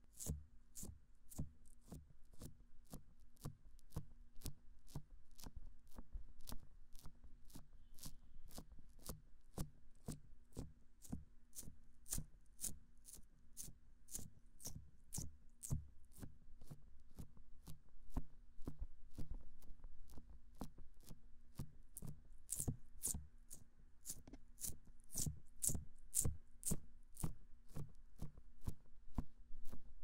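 Hands massaging the silicone ears of a binaural microphone, a rhythmic train of short rubbing strokes at about three a second, heard close up through the mic's ears.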